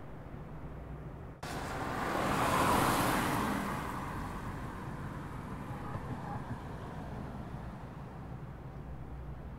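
Car driving on wet pavement: a steady low hum with tyre hiss that jumps up suddenly about a second in, swells, then slowly fades back down.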